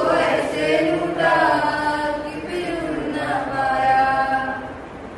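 A group of voices singing a slow song together, with long held notes; the singing dies away near the end.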